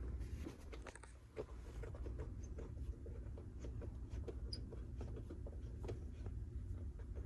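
Faint, irregular small clicks and ticks of a bolt being unscrewed by hand with a hand tool, over a low hum.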